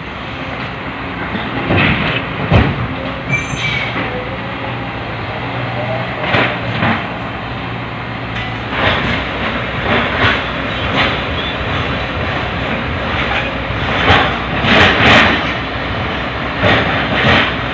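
Diesel machinery running while rock is loaded into a steel dump-truck body, with repeated heavy clanks and scraping from rock and metal striking.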